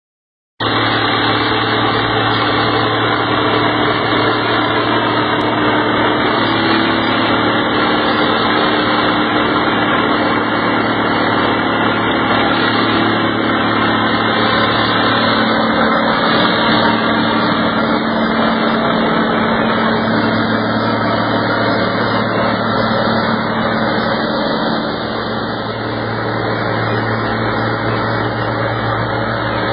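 Olathe tub grinder running: its engine and rotating tub make a loud, steady mechanical din with a low engine hum. It starts suddenly about half a second in and eases off slightly near the end.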